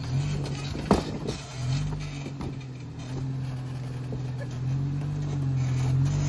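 Lifted Jeep Wrangler Rubicon's engine running at low revs as it rock-crawls, its pitch stepping up and down with the throttle. A sharp knock about a second in, with a few lighter clicks after it.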